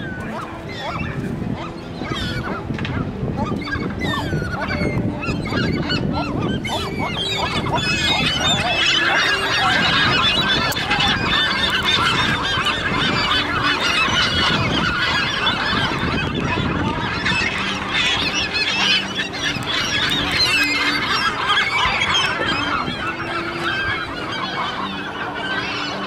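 A flock of gulls calling and squawking all at once as they squabble over food, with many overlapping calls that grow louder through the middle.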